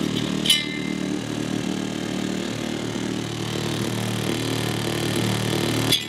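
Car audio system playing a bass-heavy song through two 12-inch subwoofers in the trunk, heard inside the car cabin as a steady droning bass, with a brief sharper hit about half a second in.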